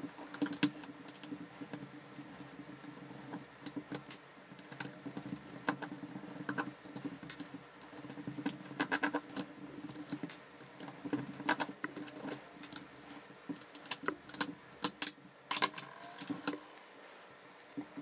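Scattered small clicks, taps and scrapes of a screwdriver and fingers on plastic and metal parts as an older GFCI outlet is unscrewed and its housing opened, over a low steady hum that stops shortly before the end.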